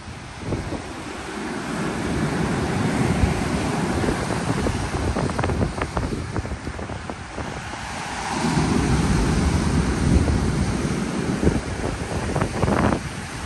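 Breaking surf on a sandy beach mixed with wind buffeting the microphone, a dense rumble that swells and eases twice.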